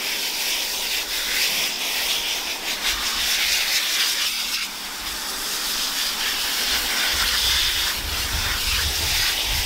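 Water hissing steadily from a garden hose spray nozzle as it soaks a dog's coat.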